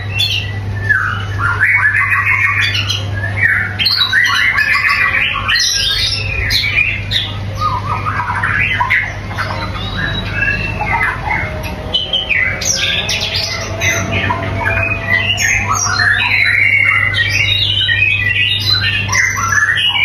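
White-rumped shama (murai batu) singing a rapid, varied song of whistles and harsh notes with almost no pauses, over a steady low hum.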